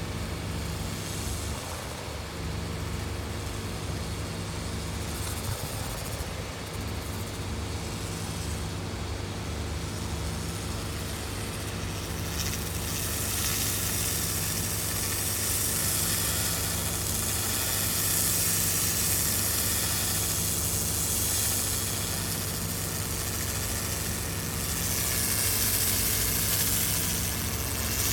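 Handheld laser cleaner stripping rust from a steel wheel rim: a steady hiss over a constant low machine hum, the hiss growing louder and brighter about halfway through.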